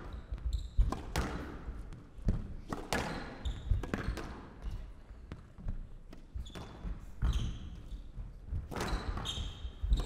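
A squash rally on a glass court: the ball cracks off rackets and walls about once a second, with short squeaks of court shoes on the wooden floor.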